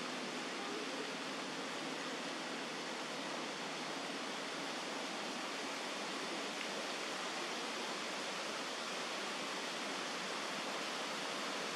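A steady, even hiss of background noise with no distinct calls or knocks.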